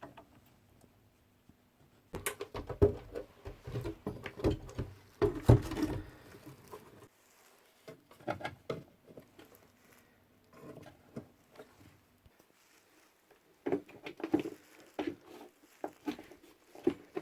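Irregular crackles and scratchy bursts from a 1950s Pye valve radio through its speaker, with a faint low hum under the first half. The crackling comes in clusters, thickest early on and again near the end.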